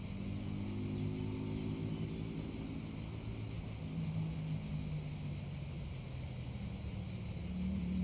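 Cicadas droning as one steady high-pitched hum, with an engine's low hum underneath, its pitch drifting slowly and growing louder near the end.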